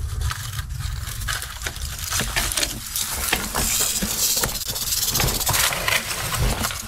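A rattlesnake rattling, a high dry buzz that grows stronger from about halfway in. Over it come short clicks and scrapes of snake tongs working through gravel and dry vines.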